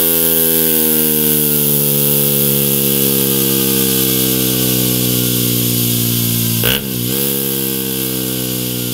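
Aprilia RS 125's single-cylinder four-stroke engine running through a Mivv Delta Race exhaust, held at high revs on a test bench with the pitch slowly falling. About two-thirds of the way through, the revs dip briefly with a sharp crack and then pick up again.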